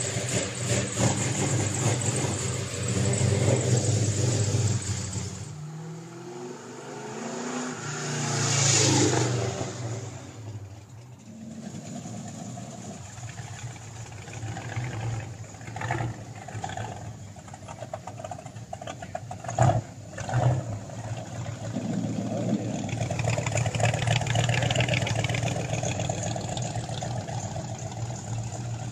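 Classic cars' engines running and revving as they move past, the sound changing abruptly a few times.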